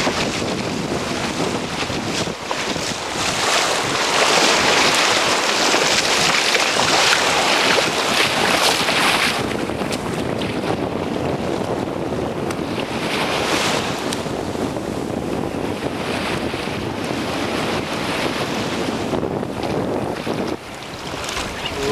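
Gulf surf breaking and washing up the beach, mixed with wind buffeting the microphone; the wash swells louder a few seconds in and again about halfway through.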